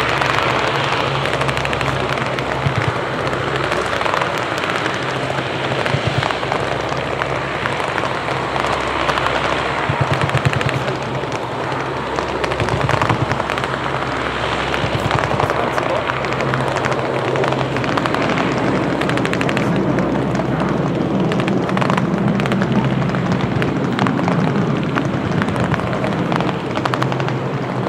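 Lockheed C-130H Hercules's four Allison T56 turboprop engines running as the aircraft taxis, a steady loud propeller drone with a low hum under a broad rushing noise.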